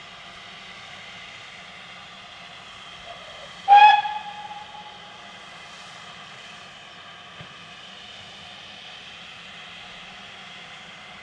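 GWR Hall class 4-6-0 locomotive 6990 'Witherslack Hall' hissing steam at a standstill. About four seconds in it gives one short, sharp toot of its whistle.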